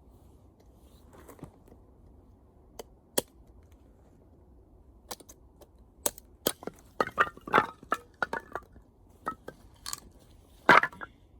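Wood fire crackling: irregular sharp pops and snaps, a few scattered at first, then coming thick and fast in the second half, with the loudest pop near the end.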